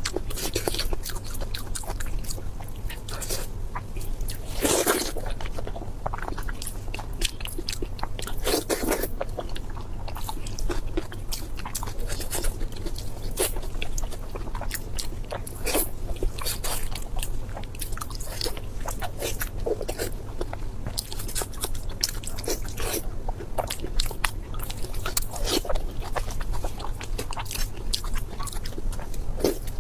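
Close-miked eating: a person biting and chewing crunchy food, with many crisp crunches one after another and a few heavier bites. A steady low hum runs underneath.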